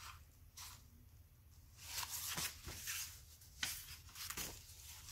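Pages of a picture book being handled and turned: several faint, soft paper rustles.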